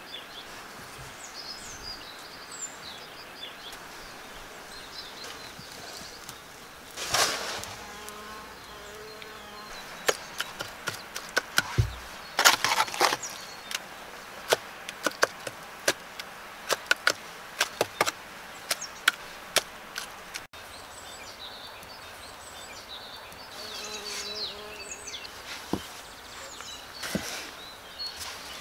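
Short sawn log rounds knocking and clacking against each other as they are handled and set into a clay bed for a cordwood wall, with a dense run of sharp wooden knocks in the middle and a few scattered ones later.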